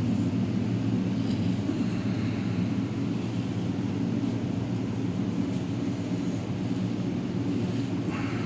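Steady low machine hum, with a light click near the end.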